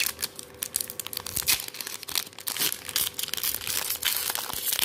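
Foil wrapper of a Pokémon trading-card booster pack being crinkled and torn open by hand: a dense run of crackles and rips.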